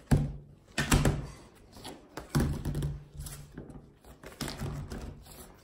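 A stack of paper plates being handled and set down on a wooden table: two sharp taps near the start and about a second in, then more knocks and rubbing.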